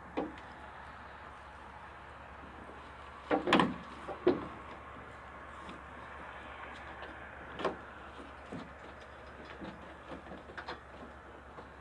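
Parts and boxes being handled on a pickup's tailgate: a few short knocks and rattles, the loudest about three and a half seconds in, over a steady low hum.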